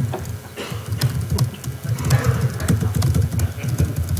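Fast typing on a laptop keyboard: a quick, uneven run of key clicks over a low rumble.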